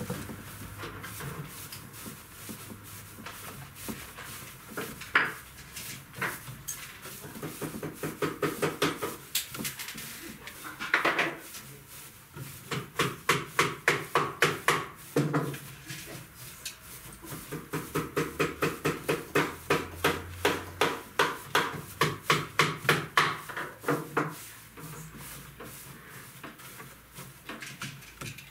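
Hands teasing and shaping a heap of crin stuffing fibre on a jute-covered seat, a rustling, scratching pull repeated about three to four times a second. It comes in two long runs in the second half, with scattered single strokes before them.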